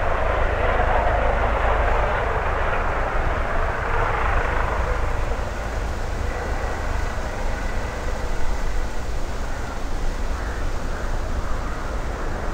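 Helicopter heard from a distance as it hovers and taxis low: a steady rushing turbine-and-rotor noise that eases somewhat about five seconds in.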